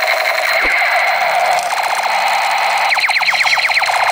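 A battery-powered toy automatic pistol plays its electronic firing sound effect: a steady buzzing tone with falling zaps. Near the end comes a rapid run of falling zaps, about eight a second.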